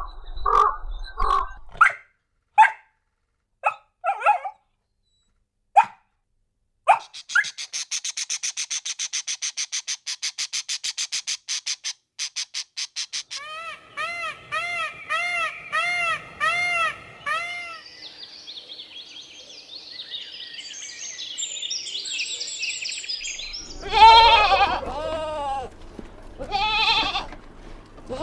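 A run of different animal calls one after another: short separate calls, then a fast even trill, a row of repeated chirps and a high warbling, and finally loud bleating from livestock in the last few seconds.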